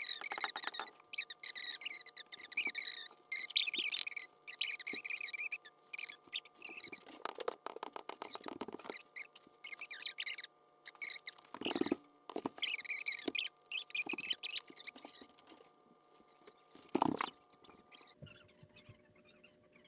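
Fast-forwarded voices, pitched up into high chipmunk-like chattering in quick runs, with a few short rustling clatters and a faint steady hum underneath.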